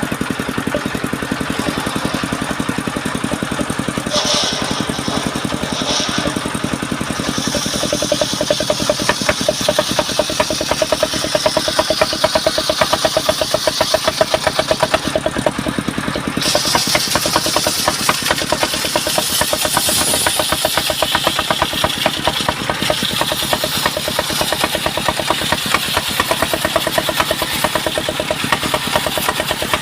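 Engine of a mobile circular-saw sawmill running steadily while the blade cuts through a log: a high hissing cut comes in briefly twice, then runs through most of the rest, with a short break about two-thirds of the way through.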